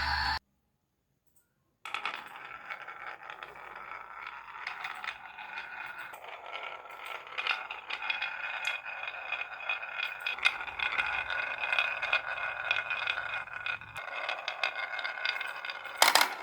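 Marbles rolling along a marble-run track: a steady rolling rattle with many small clicks, starting about two seconds in after a short silence, with a louder clatter near the end.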